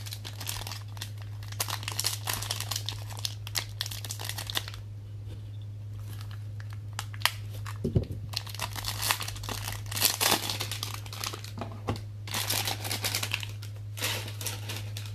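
Plastic and foil packaging crinkling and tearing in the hands, in several bursts, as trading-card packaging is opened and handled.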